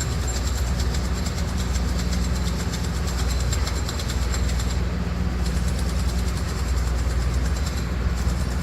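Heavy diesel construction machinery working on rock ledge: a steady low engine drone under a rapid, even mechanical clatter that stops briefly about five seconds in and again near the end.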